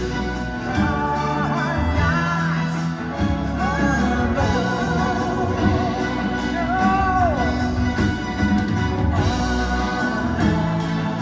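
A band playing a song live, with a singer's voice over guitar and bass.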